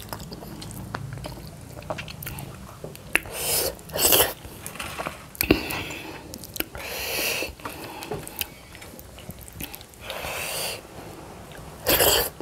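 Close-up chewing and mouth sounds of people eating meat curry and dhido with their fingers. Several short breathy rushes of noise and a few sharp clicks come through.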